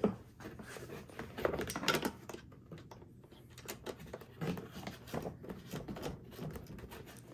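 Irregular light clicks, taps and scrapes of a long-shafted hand tool working on a small-engine carburetor's mounting bolts, with hand-handling rustle.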